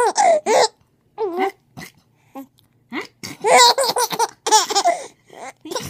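A baby laughing in short, high-pitched bursts, with a longer run of laughter from about three to five seconds in.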